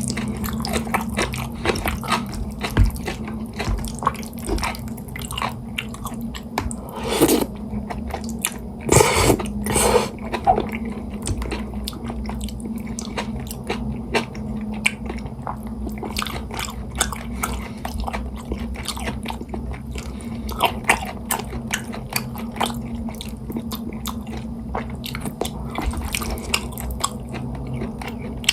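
Close-miked eating of jajangmyeon: steady chewing and wet mouth sounds with many small smacks, and a few louder noodle slurps around a third of the way in. A steady low hum runs underneath.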